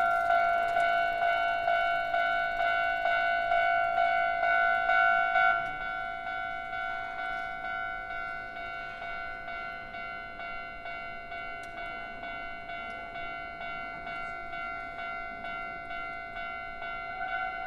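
Japanese railway level-crossing warning bells ringing, a steady electronic clang about twice a second. The louder bell stops about five and a half seconds in, a fainter one keeps ringing, and the louder one starts again near the end.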